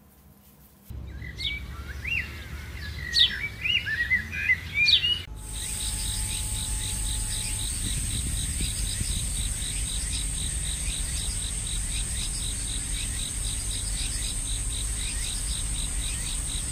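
Birds singing outdoors with quick, bright chirping calls. About five seconds in the sound changes abruptly to a steady high-pitched drone with fainter bird chirps over a low rumble.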